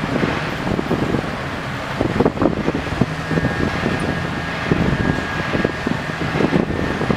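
SPMW 8000 rail crane's engine running steadily while it sets a track panel down onto a flatcar, with irregular low knocks. A thin steady high tone joins about three seconds in.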